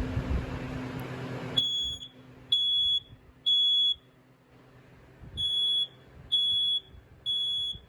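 BRK 4120B hardwired ionization smoke alarm sounding its alarm in the temporal-three pattern: two groups of three loud, high-pitched beeps with a pause between. The beeping starts about a second and a half in.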